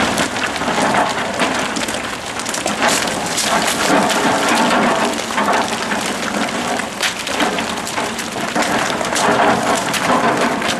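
Dense, steady crackling noise of wind buffeting the microphone and gravel crunching under the wheels on a dirt road.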